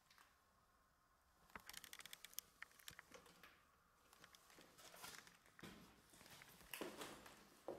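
Faint footsteps and scuffing on a debris-strewn floor, with a quick run of small ticks about two seconds in. The steps grow louder near the end.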